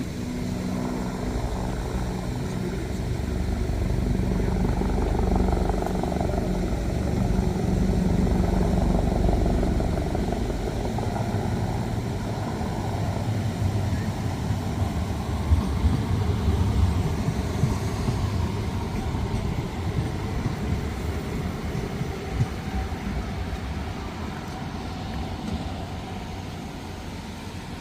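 Low engine rumble of motor traffic passing close by, swelling over the first few seconds and easing off toward the end.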